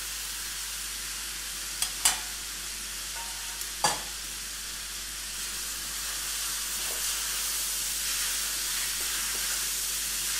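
Udon noodles and stir-fried vegetables sizzling in a hot wok as they are stirred with a wooden spatula. The sizzle grows a little louder after about halfway, and there are a few sharp knocks about two and four seconds in.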